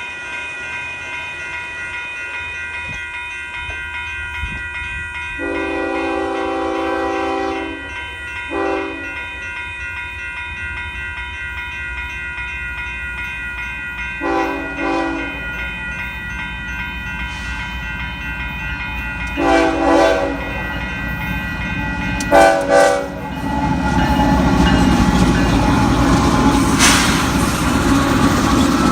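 Union Pacific freight locomotive approaching and sounding its air horn: a long blast about five seconds in, then a short one, then three more short blasts several seconds apart. Near the end the locomotive and the loaded rock train reach the crossing and pass close, a loud rumble with wheel clatter.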